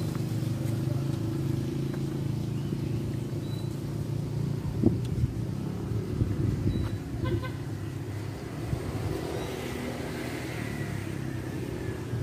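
A motor vehicle's engine running steadily with a low hum.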